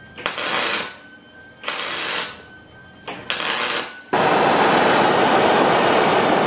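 MIG spool gun welding aluminum in three short bursts, each under a second, the arc crackling and hissing with pauses between. Then a steady loud hiss begins suddenly: a handheld gas torch flame heating a welded seam.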